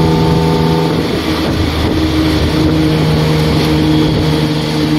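Motorcycle tuk-tuk engine running under way, heard from the open passenger cart with road and wind noise. The steady engine note breaks up about a second in and settles back to the same pitch a second or so later.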